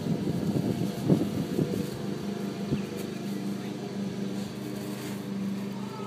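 A steady mechanical hum of a running motor, with irregular bumps and rustles in the first two seconds.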